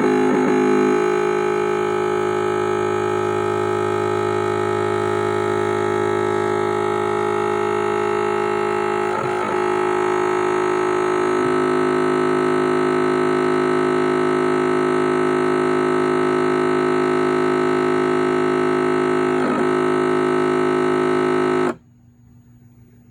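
Stepper motors of a Carbide 3D Nomad 883 Pro desktop CNC mill giving a steady, loud electronic whine of several stacked tones during a homing cycle. The tones shift slightly twice and then cut off abruptly near the end. The machine never reaches its home limit switch, so homing fails.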